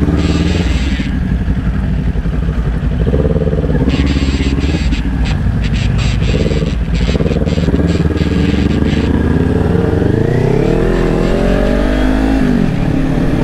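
Motorcycle engine running at road speed with wind rushing over the microphone; near the end the engine's pitch rises and then falls as the throttle is worked.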